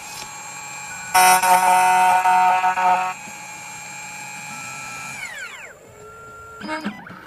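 2M2 Tank CNC key cutting machine running: a loud, many-toned motor whine that breaks off and comes back about a second in for two seconds, then a quieter whine that winds down with a falling pitch about five seconds in, followed by a few clicks near the end.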